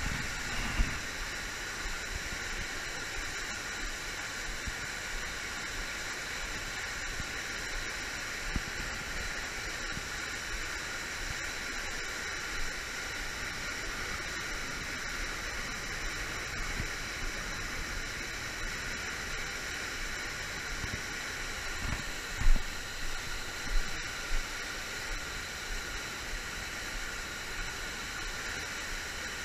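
Steady rushing hiss of river water pouring over a low-head dam spillway. A few dull low thumps come about three-quarters of the way in.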